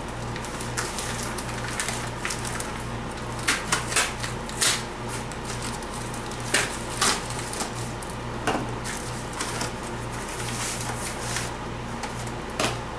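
A mail package being opened by hand: scattered crinkles, clicks and rustles of cardboard and plastic packaging, with sharper snaps now and then.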